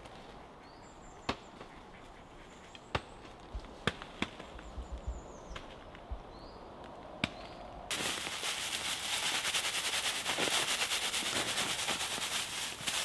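Dry straw being shaken out and dropped onto a tarp of clay lumps for a straw-and-clay daub mix: a dense, loud crackling rustle that starts suddenly about eight seconds in. Before it there are only a few sharp knocks and short high chirps.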